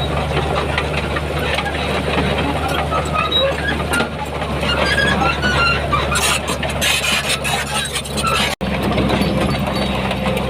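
Heavy diesel earthmoving machinery running steadily under load, with scattered short high squeaks and squeals over the engine drone. The sound drops out for an instant about eight and a half seconds in, and the engine note is different afterwards.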